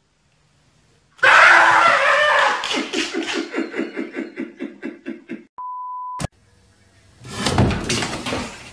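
A pet door flap bangs, then rattles back and forth with knocks about four or five times a second that fade out as it swings to rest. A short steady test-tone beep follows, then a stretch of jumbled clattering.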